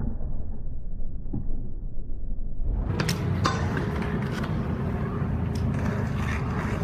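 BMX bike riding on a concrete skatepark: a steady low rumble of the tyres rolling, turning brighter and hissier about three seconds in, with a few sharp knocks from the bike landing.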